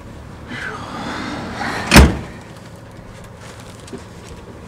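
A tool truck's sliding door rolls along its track and slams shut once, about two seconds in.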